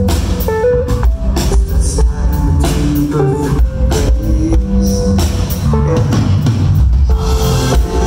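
Rock band playing live, an instrumental passage with no vocals: a drum kit keeping a steady, busy beat under guitar and held pitched notes.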